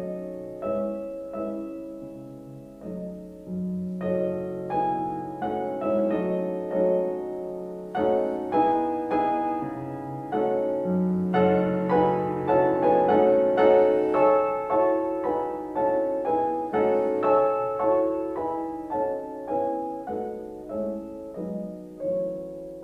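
Background music: solo piano playing a gentle flowing melody of struck, ringing notes.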